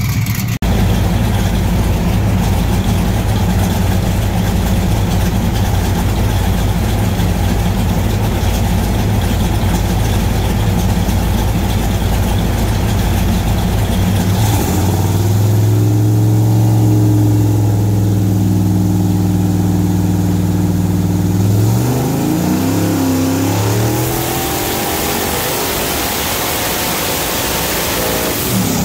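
Twin-turbo, direct-injected 427 ci LT5 V8 running on an engine dyno, held at steady revs. About halfway through the note changes abruptly to a louder, steady pitch. Around three-quarters of the way in the revs fall away, and the engine settles into a lower, quieter run with more hiss.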